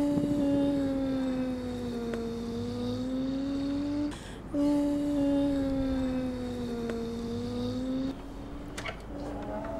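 A person humming long held notes, each about four seconds, the pitch sagging slightly and rising again. There is a short breath break between the first two notes, and a third, fainter note near the end.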